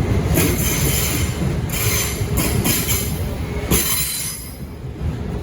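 Freight train wagons rolling past with a steady low rumble and repeated bursts of screeching wheel squeal. The sound eases off a little near the end.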